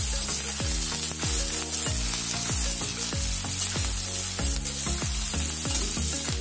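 Chopped onion and green chilli sizzling steadily in hot oil in a kadai as they are sautéed, stirred now and then with a metal spatula. Background music with a steady beat plays underneath.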